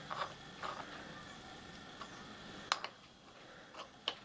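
A few light metallic clicks and clinks from small steel tools being handled while an engraving tool is set up in the grinder on the milling head. The sharpest click comes about two-thirds of the way through.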